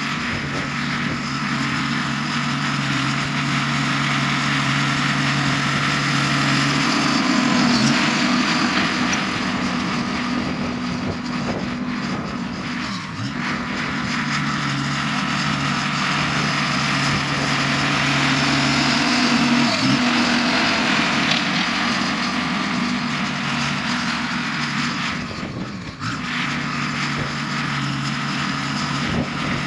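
Diesel engine of heavy earthmoving equipment running steadily while working, its note shifting every several seconds, with a brief dip near the end.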